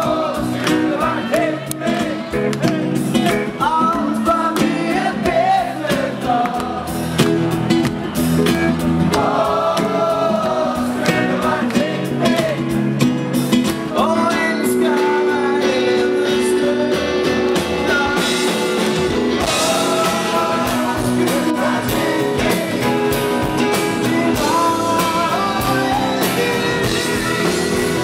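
Live rock band playing a song with electric guitar and a sung lead vocal, the audience singing along.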